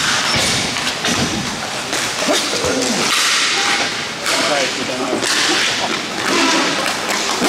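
Hockey play: repeated scraping rushes of skates and sticks, with sharp cracks of sticks striking the puck and dull thuds, under players' voices.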